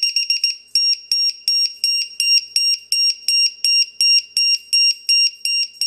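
Buzzer of a HobbyKing LiPo low-voltage alarm plugged into a three-cell LiPo's balance port, giving a quick run of short chirps and then steady high-pitched beeps about two and a half a second. The cells read about 4.1 V each, so the alarm is sounding falsely: the unit is defective.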